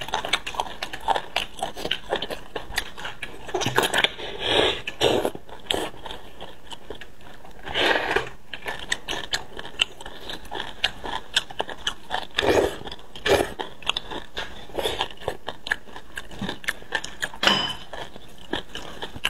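Close-up eating sounds: a metal spoon scraping marrow out of braised beef bones, with wet chewing, many small clicks and crackles, and a few louder, longer smacks.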